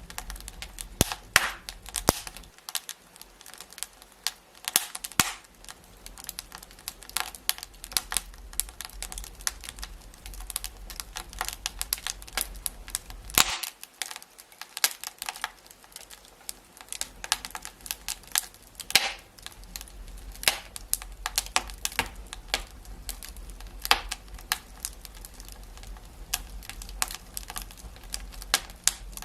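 Wood fire crackling in a fireplace: irregular sharp pops and snaps of varying loudness over a low steady hiss.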